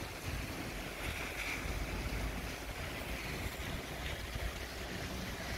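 Steady rain falling at night, an even hiss with a low rumble underneath.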